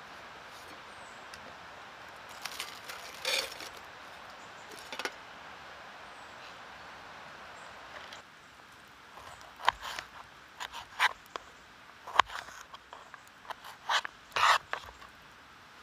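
Sticks and dry woodland debris being handled: irregular scrapes and rubs with short, sharp snaps. The snaps come thick and close together in the second half, after a steady hiss in the first half.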